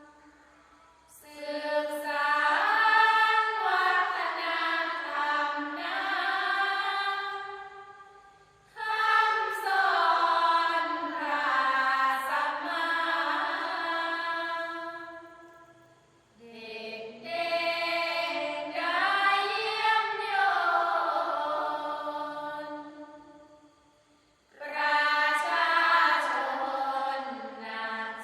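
Thai Buddhist sarabhanya verse chanted by a troupe of singers, in four long drawn-out phrases with sliding, ornamented pitch, each broken off by a short pause for breath.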